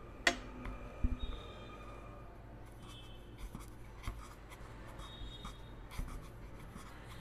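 Paintbrush mixing blue and green paint in a white plastic palette well: faint scratching with small ticks of the brush against the plastic. Just after the start there is a sharp click, and about a second in a few quick knocks, as the glass paint bottles are handled and opened.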